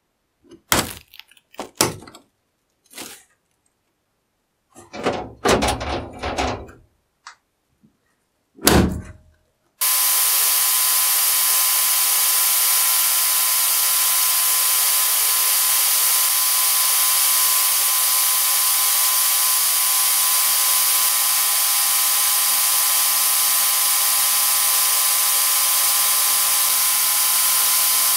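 A handful of knocks and clunks from the rusty iron cover of an old charcoal iron being handled. About ten seconds in, a sandblasting cabinet's blast gun starts up with a loud, steady hiss as it strips the rust from the cover.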